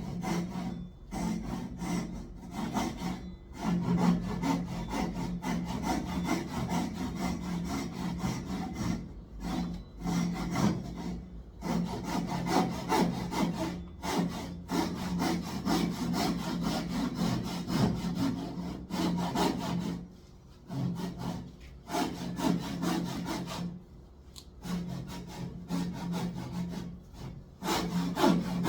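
Hand saw cutting wood in runs of quick back-and-forth strokes, with short pauses between runs.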